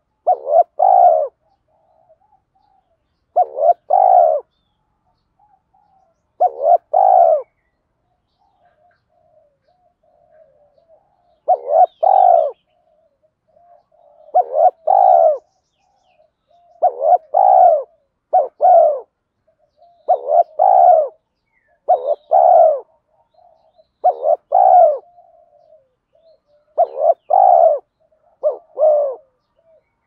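Spotted dove cooing at close range: short double-note coos repeated every two to three seconds, with soft low notes between the phrases.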